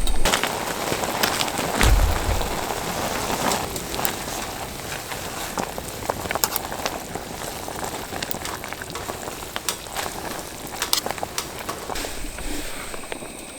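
Firewood crackling and popping in a small wood-burning camping stove, with a dull thump about two seconds in and the crackle growing quieter toward the end.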